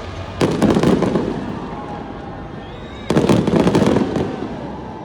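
Fireworks going off in two volleys, each a sudden cluster of crackling bangs that fades over about a second, the first about half a second in and the second about three seconds in.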